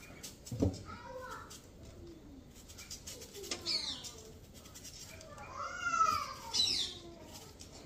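Birds calling: a few short whistled calls that rise and fall in pitch. There is a sharp knock about half a second in.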